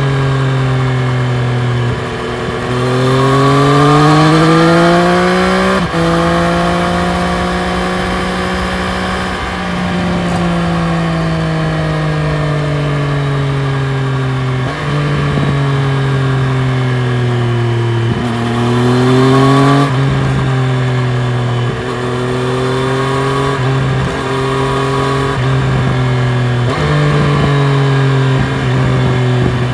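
A 2020 Triumph Street Triple RS's 765 cc inline-three engine pulling while ridden. The pitch climbs hard for a few seconds, then sinks slowly as the throttle is eased, then rises again and changes in several quick steps near the end as the rider works through the gears.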